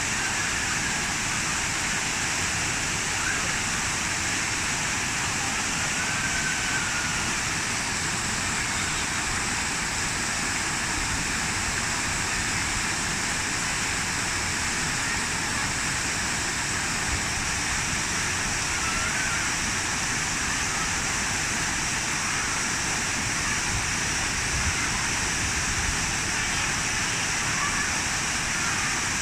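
Park water feature: a steady, unbroken rush of falling water.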